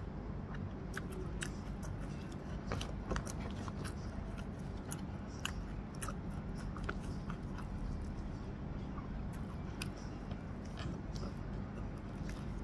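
A person eating rice by hand close to the microphone: chewing with many short crunches and mouth clicks, irregular and scattered, over a steady low hum.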